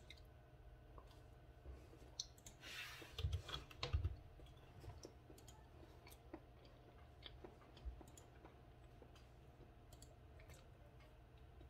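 A person chewing soft banana with the mouth closed: quiet, scattered small wet mouth clicks and smacks. A short rush of noise comes a few seconds in, followed by two dull thumps.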